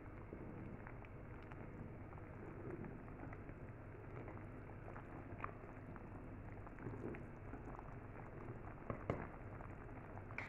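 Thick soup boiling in a pot, a faint steady bubbling with scattered sharp pops, the loudest a pair about nine seconds in.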